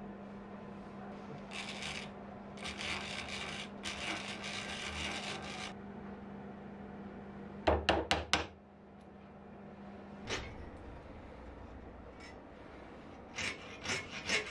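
Hand tools working small wooden parts: a few seconds of scratchy rasping strokes, then four quick sharp taps about eight seconds in as bamboo pegs are driven into holes in a wooden inlay strip. Near the end come a few short strokes of a flush-cut hand saw trimming the protruding pegs.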